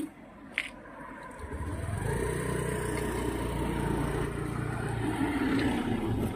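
A motor vehicle's engine running close by: a low steady hum that builds up about a second and a half in, then holds. A sharp click sounds near the start.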